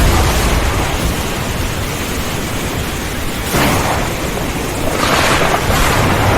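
Heavy rain pouring with thunder rumbling low underneath; the rumble swells louder about three and a half seconds in and again at about five seconds.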